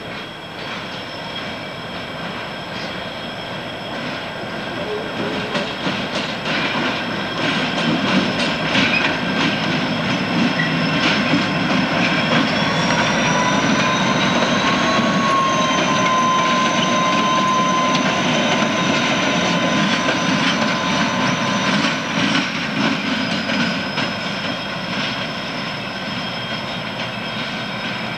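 Amtrak F40PH diesel locomotive and its train passing close, wheels clicking over rail joints. A high whine rises in pitch near the middle, holds, and drops away a few seconds later.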